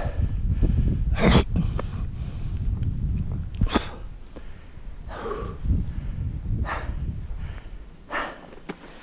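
Wind buffeting the camera microphone in a low rumble, with a climber's loud breaths and puffs of exhalation every second or two; the wind noise drops away near the end.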